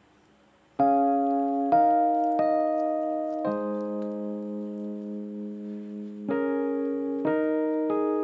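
Background music: a keyboard playing slow, ringing chords, starting just under a second in, with a new chord every one to three seconds.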